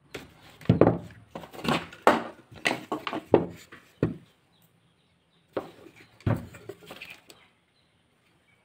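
Irregular knocks and thuds on wood, about seven in the first four seconds and two more shortly after, as an electric hand planer is handled on a wooden bench.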